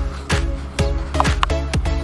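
Background electronic dance music with a steady beat, about two beats a second, over sustained chords.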